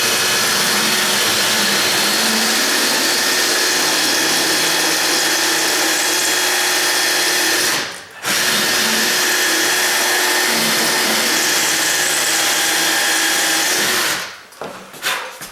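Dremel rotary tool running at high speed with a grinding-stone bit against the metal strike plate, a steady high whine with grinding noise. It stops briefly about halfway through, then runs again until shortly before the end. The grinding-stone bit is hardly cutting the metal.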